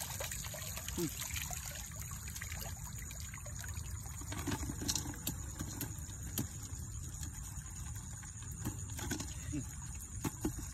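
Water trickling steadily through a shallow channel in a flooded rice field, under a steady high hiss. A few faint knocks and rustles come from a woven cone-shaped fish trap being handled.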